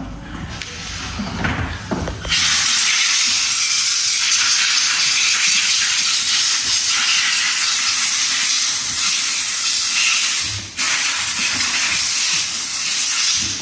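Compressed-air blow gun blowing off freshly washed pistol parts: a loud steady hiss that starts about two seconds in, cuts out briefly near the ten-second mark, then starts again.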